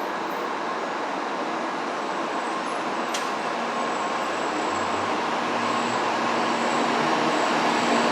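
N700 series Shinkansen train pulling out of the station, its running noise building steadily louder as it gathers speed, with faint steady whining tones from the drive coming in about halfway. A single sharp click about three seconds in.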